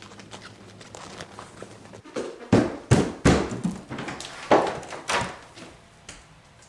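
Gorilla sound effect: a run of short, loud grunts, about six of them over three seconds, starting about two seconds in.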